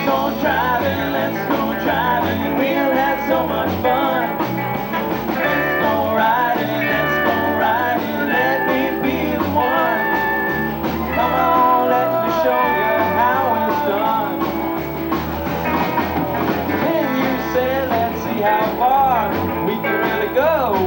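A live rock-and-roll band playing an instrumental break between verses: lead guitar lines with string bends over bass and drums.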